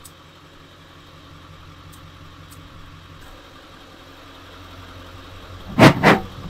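An engine idling steadily, then about six seconds in two quick, loud pops close together as flammable fluid put inside a tyre is lit to blast the bead onto the rim, an attempt that fails to seat it.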